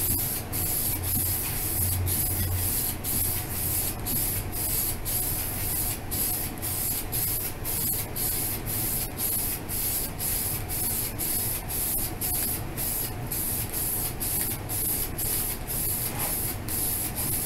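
Aerosol spray can of primer hissing as a coat is sprayed onto a plastic car bumper in repeated passes. The hiss breaks off briefly about twice a second.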